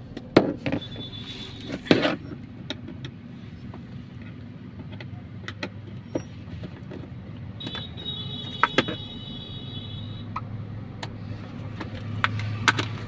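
Screwdriver work on the plastic handbrake console of a car: scattered clicks and knocks with a couple of sharper taps, and short high squeaks as the screws turn out. A steady low hum runs underneath.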